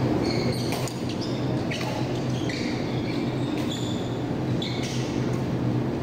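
Court shoes squeaking on a synthetic badminton court floor, several short high squeaks as players shift their feet, over a steady low hum in the hall.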